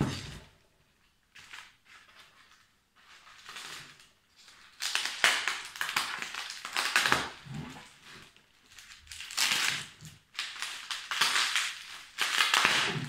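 Plastic bubble wrap crinkling and rustling as it is pulled and unwound by hand, in several bursts, fainter at first and louder from about five seconds in.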